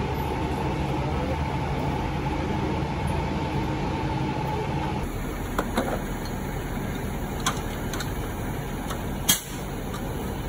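Fire engine's diesel engine idling steadily, with a few sharp metallic clanks in the second half, the loudest near the end, from an aluminium folding ladder being handled.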